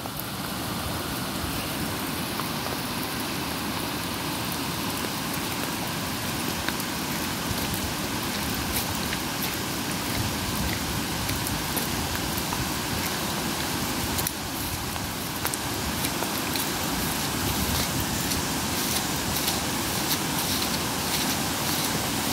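Steady rush of muddy floodwater flowing across a lane, growing a little louder.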